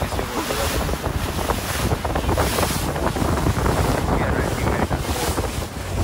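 Tour boat under way on open sea: engine rumble and water rushing past, with wind buffeting the microphone in gusts.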